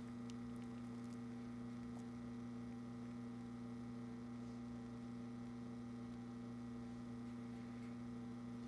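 Espresso machine pump running with a steady low hum while a shot is being pulled.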